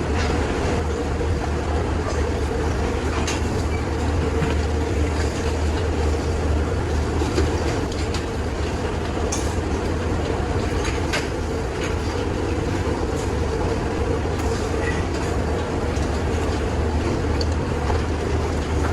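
A steady low mechanical rumble with a constant hum, and scattered light clicks and clatter over it.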